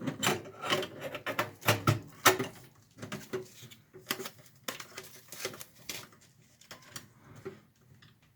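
Irregular clicks, taps and knocks of a hard drive and a piece of foam being handled and fitted into a desktop PC case, busiest over the first few seconds and thinning out after that.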